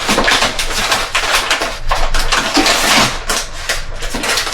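Grocery packaging rustling and crinkling with quick, irregular crackles as items are rummaged out of the delivery.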